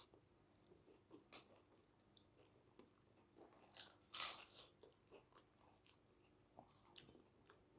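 Eating sounds close to the microphone: faint chewing with scattered short crunches and mouth clicks, and a louder crunch about four seconds in.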